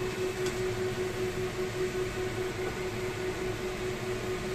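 Cauliflower and red bell pepper stir-frying in a nonstick wok: a steady, even hiss under a constant hum, with a faint tap of the spatula against the pan about half a second in.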